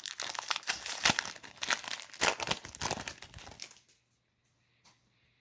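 Shiny wrapper of a 2021 Panini Prizm Draft Picks card pack being torn open and crinkled: a dense crackle of tearing and crumpling that stops about four seconds in. One small click follows near the end.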